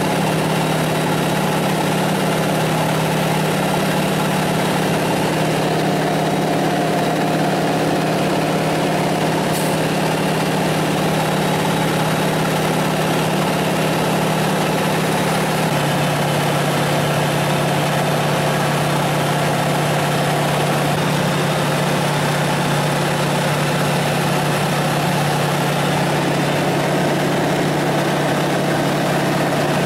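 Light aircraft's piston engine and propeller running at takeoff power, heard inside the cockpit during the takeoff run and climb-out, a loud steady drone. The drone steps slightly lower in pitch about halfway through.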